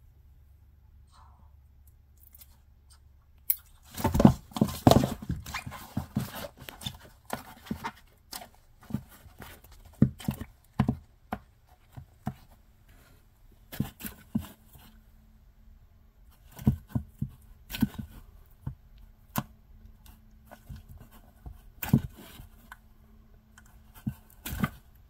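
African bullfrog biting and swallowing a giant centipede: a long irregular series of sharp clicks, knocks and crunches with rustling between them. The sounds start a few seconds in and are loudest just after they begin.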